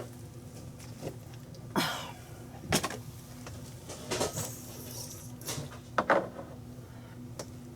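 Kitchen knocks and clatters: several sharp, irregular ones from cupboards being opened and bowls being handled, over a low steady hum.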